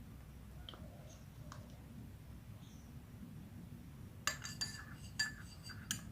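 A metal spoon stirring honey into a glass of warm drink, clinking against the side of the glass several times in quick succession from about four seconds in. Before that there is only a faint low hum and a few light ticks.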